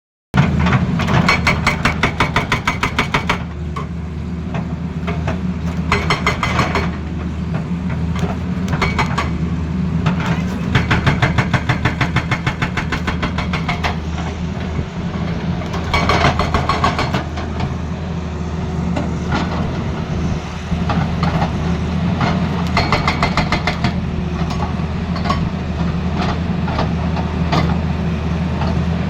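Excavator-mounted hydraulic breaker hammering in repeated bursts of rapid blows, over the excavator's diesel engine running steadily.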